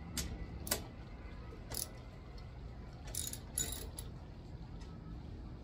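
Small metal hardware clinking against a fabricated metal plate as bolts are test-fitted to it: about five separate sharp metallic clicks and clinks, spaced irregularly.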